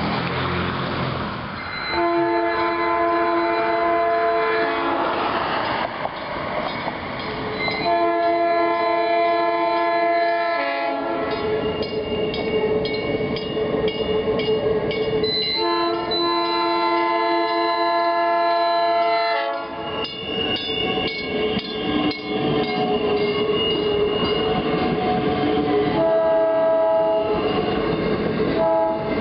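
South Shore Line electric interurban train sounding its multi-tone horn: three long blasts of about three to four seconds each, then a short one near the end. The train's wheels clatter on the street track between the blasts.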